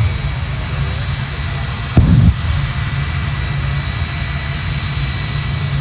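Shockwave jet truck's jet engines running with a steady rush and faint high whine, with one short loud afterburner pump (a low boom) about two seconds in.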